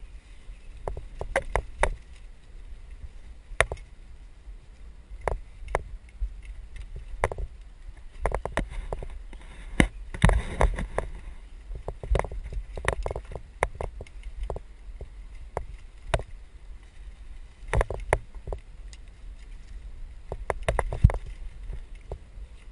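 Mountain bike ridden over a rough dirt singletrack, rattling and clattering with irregular sharp knocks as it bounces over bumps. The knocks come thickest about ten seconds in, over a steady low rumble.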